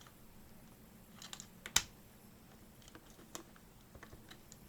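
Faint, scattered clicks and taps of hands working on a handheld jigsaw and its parts, with one sharp click a little under two seconds in.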